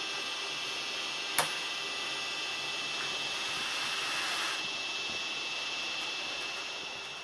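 Hector Rail class 241 electric locomotive standing with its equipment running: a steady hissing whine. There is one sharp click about a second and a half in, and a short burst of air hiss around four seconds in.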